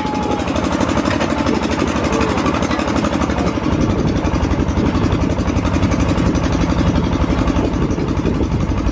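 Tractor engine running steadily as it tows a passenger trailer along a dirt road, with a fast, even pulse throughout.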